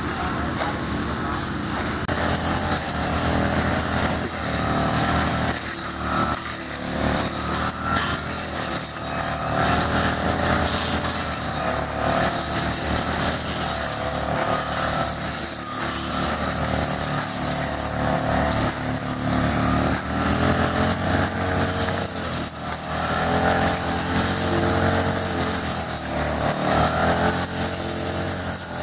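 Petrol brush cutter engine running steadily, its pitch rising and falling as the throttle is worked while it cuts grass.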